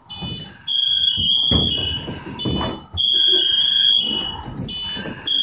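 Firefighter's PASS device (personal alert safety system) alarm sounding: a shrill electronic tone cycling through stepped pitches, repeating about every two seconds, the distress signal that lets a partner locate a separated firefighter. Low knocks and rustling of movement underneath.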